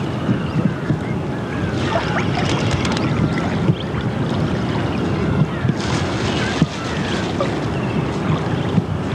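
Wind blowing across the camcorder microphone, a steady rumbling rush, with faint high chirps scattered over it.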